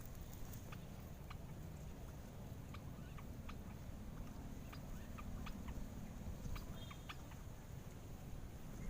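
Quiet outdoor ambience: a low steady rumble with scattered faint short clicks and chirps.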